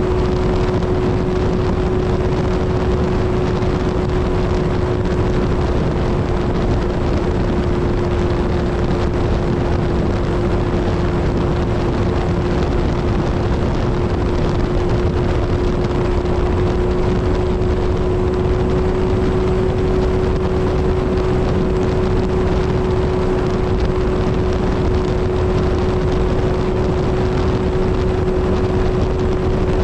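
Kawasaki Z1000 inline-four engine and exhaust at a steady highway cruise, holding one engine note with only a slight rise, under heavy wind rush.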